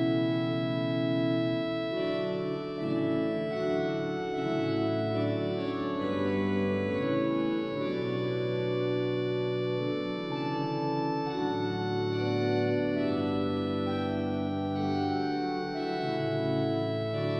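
Two-manual console organ played with both hands: sustained chords over a low bass line, changing notes every second or two.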